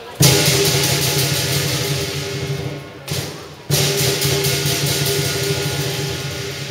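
Lion dance band's gong and cymbals struck in a loud crash that rings on and slowly fades, then struck again about three and a half seconds later.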